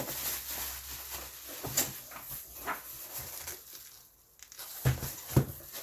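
Box cutter slicing through packing tape and cardboard, with irregular scrapes and a few sharp knocks as the box is handled.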